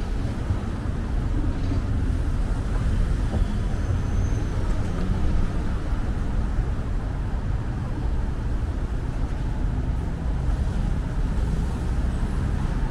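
City street traffic heard from the sidewalk: a steady low rumble of cars passing.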